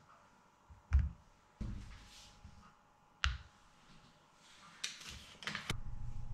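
Pieces of butter set down one after another into a ceramic bowl on a kitchen scale: three soft thuds, the last with a sharp click. Near the end comes a quick run of clicks, then a steady low hum starts.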